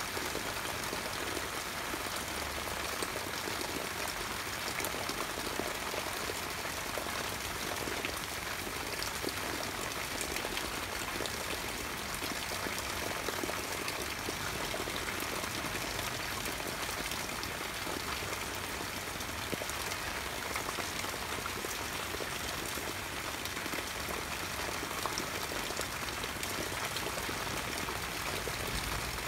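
Steady rain falling on the leaves of an eggplant (brinjal) plant: an even hiss made up of many small drop impacts, unchanging throughout.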